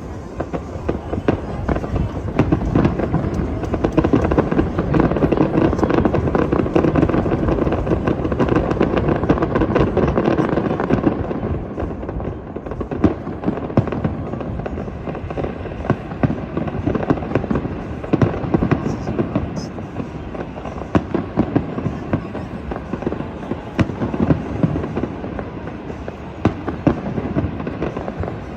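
Fireworks bursting in a dense, continuous barrage of bangs and crackles, heaviest in the first ten seconds or so, then a little thinner.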